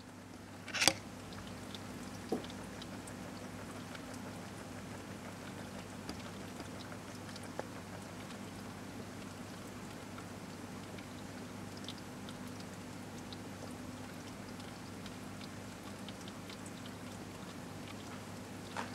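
Steady low hum and even hiss of equipment in a frog vivarium, with a sharp click about a second in and a softer knock a second or so later.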